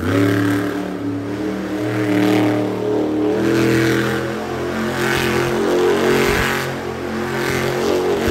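Monster truck engine revving hard in repeated surges, swelling and easing about every second and a half, as the truck spins in loose dirt.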